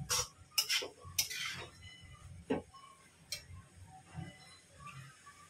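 Steel spatula scraping and clinking against a steel kadhai while stirring grated carrots frying in ghee: a few quick scrapes and clinks, one longer scrape about a second in, a last clink a little past three seconds, then it stops.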